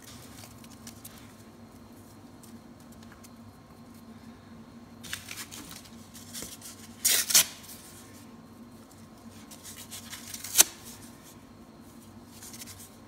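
Thin split kindling sticks being set by hand against a kindling teepee over paper and cardboard in a wood stove firebox: soft scraping and rustling, with a few sharp wooden clicks, the loudest about halfway through and another a few seconds later.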